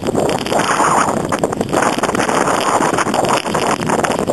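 Blizzard wind blowing hard across the microphone: a loud, continuous rush of wind noise that rises and falls in gusts.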